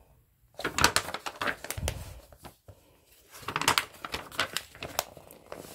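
Glossy paper pages of a large picture book being handled and turned, crinkling and rustling in two bouts: one starting about half a second in, the other a little after three seconds.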